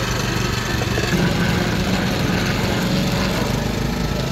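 Steady mechanical drone of a running motor, even in level throughout.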